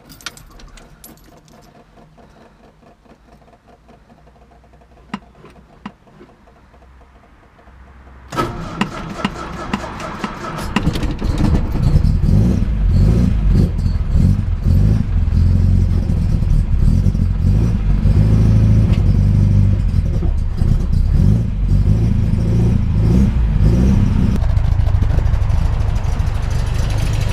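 A few faint clicks and a key jingle, then the MGB GT's four-cylinder engine starts about eight seconds in and runs at raised revs, dropping back a little near the end. A new gasket has just been fitted at the leaking manifold-to-exhaust flange joint, and the owner hears no exhaust leak.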